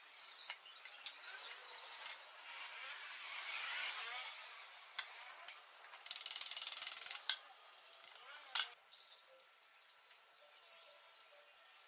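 Metal parts and hand tools clinking, clicking and scraping as lathe components are handled and fitted together. There are sharp metallic clicks with short ringing, and longer rattling, scraping spells about three seconds in and again around six seconds.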